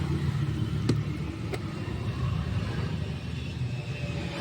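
A motor vehicle's engine running steadily as a low rumble, with two short sharp clicks about one and one and a half seconds in.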